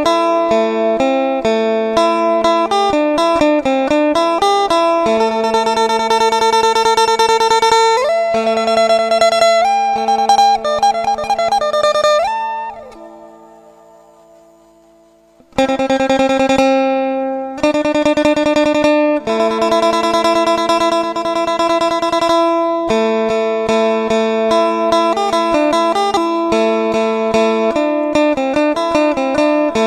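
Phin, the Isan plucked lute, playing a lively melody of rapid repeated notes over a steady drone note. The music fades out about twelve seconds in, and a new passage starts suddenly about three seconds later.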